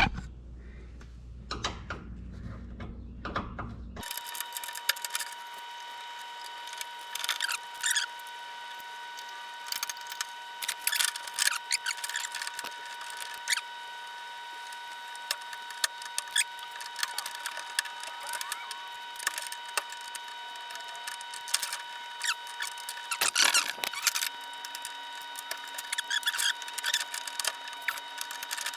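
Scattered clicks, taps and clinks of hand tools and small metal parts being handled, over a steady high-pitched electrical whine. A low hum in the first few seconds stops abruptly.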